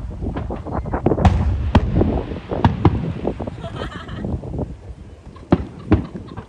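Fireworks display: a rapid run of overlapping bangs and crackling shell bursts for about three seconds, then fewer, separate booms, with two sharp bangs near the end.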